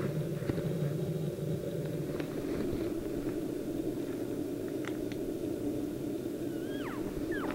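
Steady low outdoor rumble, then near the end a few short falling cow-elk mews blown on a call by another hunter.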